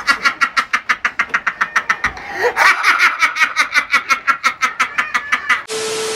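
A man laughing hard in a rapid, high-pitched cackle of about six pulses a second, with a brief catch of breath about two seconds in. Near the end it cuts to a short burst of TV static hiss with a steady beep.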